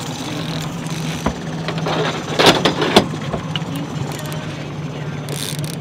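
Mercury outboard motor running steadily at low speed, a constant hum, with a short burst of noise and a few knocks about two and a half seconds in.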